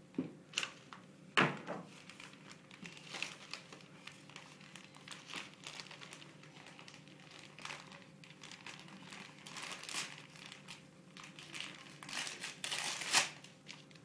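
Gift wrapping paper crinkling and rustling in irregular bursts as it is handled and pulled open, loudest a little before the end.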